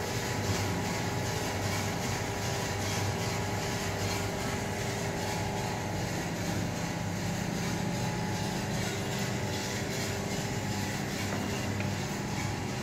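AKS 10 Super gas-fired drum coffee roaster running: a steady mechanical hum with several constant low tones over an even hiss from its burner and fans.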